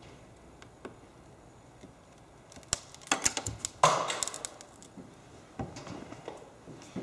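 Sharp clicks and crackles as the cracked glass digitizer of an iPad 2 is pried up from its frame, with one loud snap about four seconds in that rings briefly; a few softer clicks follow.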